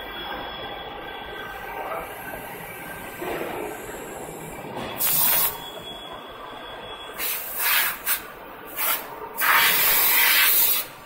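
Automatic water meter body finishing machine running with a steady hum. In the second half, four loud hissing bursts break in; the last and loudest lasts over a second.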